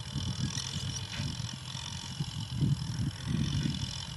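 Diesel engines of Kubota tractors running while they plough, heard as an uneven low rumble.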